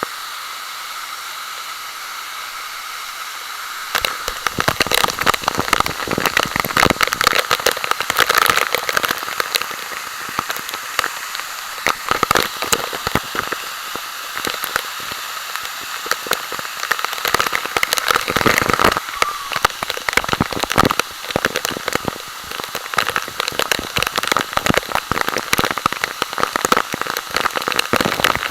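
Water noise at a waterfall pool: a steady hiss, then from about four seconds in a dense, irregular crackling.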